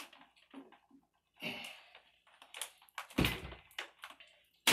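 Thin, flexible putty knife scraping and clicking against a vinyl window frame and its glass as it cuts through the silicone bead holding the fixed pane. The strokes are short and irregular, with a heavier knock a little over three seconds in.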